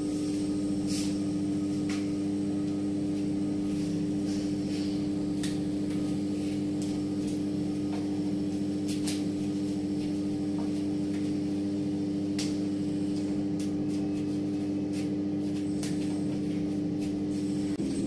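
A steady, even hum, like a motor or fan running, with faint light clicks and taps scattered over it. The hum changes just before the end.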